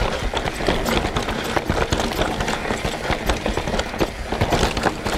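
Mountain bike rolling fast over a rough dirt and rock trail: continual clatter and rattle of the bike, with frequent sharp knocks as the tyres hit stones and roots.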